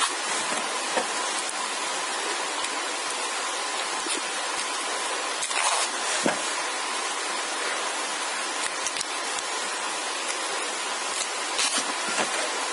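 Steady hiss with a faint high tone running through it. Over it come a few soft rustles and clicks of hands wrapping floral tape around a beaded-wire stem, about six seconds in and again near the end.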